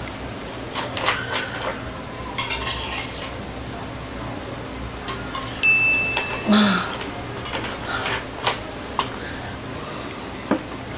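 Metal spoons scraping and clinking against ceramic bowls of food in scattered, irregular clicks, with a plastic water bottle being opened and handled.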